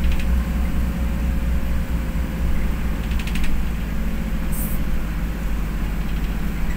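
Inside a moving bus: steady engine and road rumble, with a short rattle about three seconds in and a brief hiss near the fifth second.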